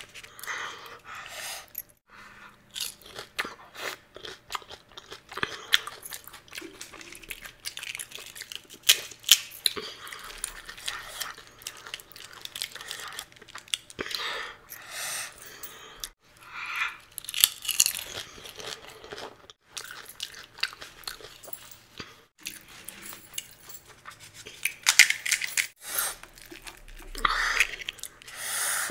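Close-miked eating of pani puri: crisp, hollow puri shells cracked open with the fingers, bitten and chewed, giving irregular crunches and crackles, some louder than others.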